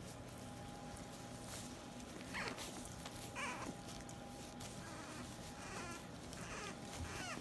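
French bulldog puppies chewing and mouthing a sock, giving a few short, high whimpers and squeaks that bend in pitch, the first about two and a half seconds in, over faint soft clicks and rustling.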